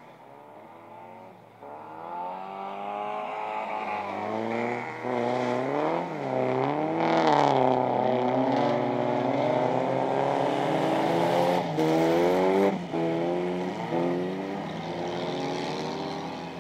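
Two folkrace cars' engines revving hard as they come through a corner, pass close by and draw away on a dirt track. The pitch climbs and drops again and again with each gear change, growing louder to a peak in the middle, dipping briefly near the end, then fading.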